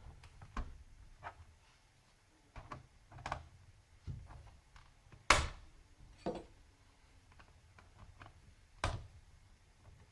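Scattered clicks and light knocks of a screwdriver and plastic as the memory-compartment hatch on a laptop's plastic underside is unscrewed and worked open, with a sharper snap about five seconds in and another near nine seconds.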